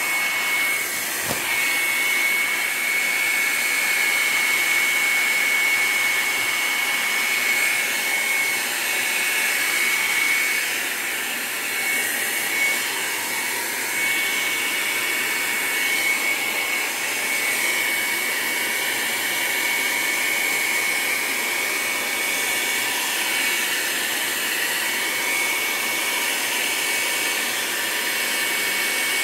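Hand-held hot-air dryer blowing steadily, its motor giving a constant high whine over the rush of air, as it dries wet watercolour paint on paper.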